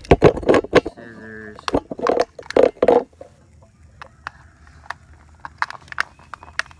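A plastic water bottle being handled and cut with scissors near its neck. There are loud plastic crinkles and knocks with a short squeak in the first three seconds, then a run of small sharp clicks as the scissor blades snip through the stiff plastic.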